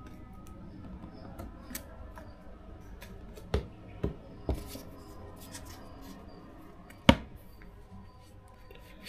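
A phone case being handled and fitted onto a OnePlus 12 smartphone: light rustling with sharp plastic clicks, three in quick succession about three and a half to four and a half seconds in and a louder snap about seven seconds in.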